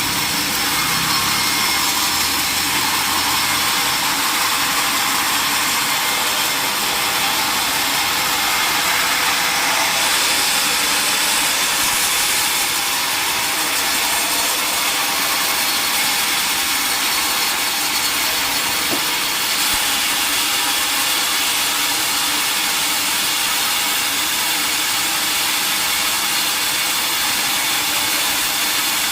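Sawmill saw cutting through a large mahogany log: a steady, loud, high hiss of the blade in the wood that runs without a break.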